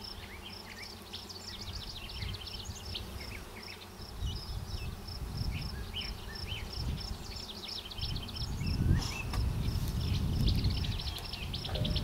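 Honeybee colony humming from the open hive as frames are worked, a calm colony that is not loud. Through it runs a low rumble, a high chirp repeating evenly a few times a second, and scattered quick bird-like calls.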